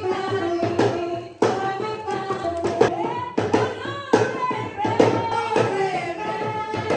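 Background music: a song with a singing voice over percussive hits.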